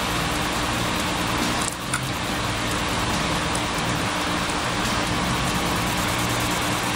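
Steady, even hiss-like noise with a low hum underneath, like a running fan or air conditioner, broken by a short dip and a single click about two seconds in.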